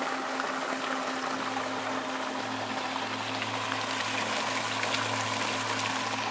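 Water pouring steadily out of the open end of an old rusted iron pipe and splashing onto rocks in a brook. A steady low hum sits beneath the splashing.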